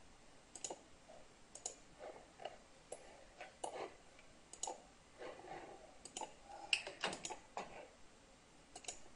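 Computer mouse clicking: a dozen or so short, sharp clicks at irregular intervals, as menu items and dialog buttons are picked.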